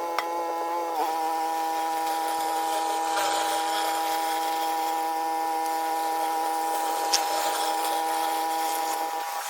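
Pressure washer running steadily with a high, even buzzing whine over the hiss of water jetting onto the paving. The whine dips briefly about a second in, then holds steady.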